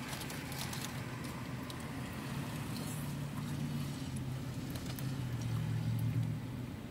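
A vehicle engine idling with a steady low hum that swells a little in the second half, under scattered small clicks and paper rustles from people eating.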